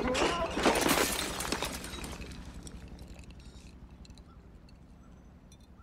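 Glass beer bottles clattering and breaking in a crash, loudest in the first second or so, then dying away.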